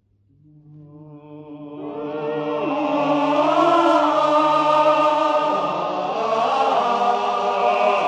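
Soundtrack music: a choir of voices singing long held notes in chords, fading in from silence and swelling to full strength over the first few seconds.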